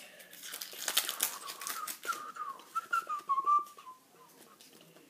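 Foil booster-pack wrapper crinkling as it is handled and torn, then a person whistling a short wavering tune for about two seconds.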